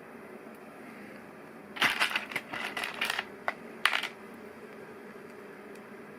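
Small hard plastic LEGO Technic pieces clattering and clicking as they are handled, a burst of rattling about two seconds in that ends with a sharp click about four seconds in, over a steady low hum.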